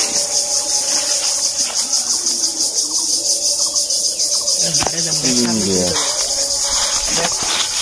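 A high-pitched insect chorus, buzzing with a fast, even pulse throughout. A few light knocks come from the bamboo eel trap as it is shaken over a sack.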